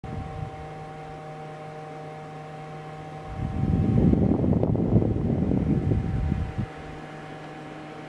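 Small portable evaporative air cooler's fan running with a steady whirring hum made of several constant tones. About three seconds in, a much louder rumbling rush comes in for some three seconds, then the steady hum returns.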